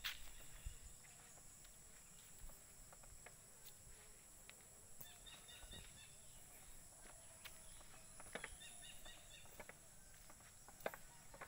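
Faint rural ambience: insects keep up a steady high-pitched drone, with scattered light footsteps on a dirt path and a couple of short calls.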